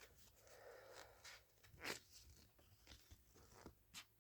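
Faint crunching and light scraping of a blunt multitool knife edge against cardboard, in a few scattered short strokes with one slightly louder stroke about two seconds in.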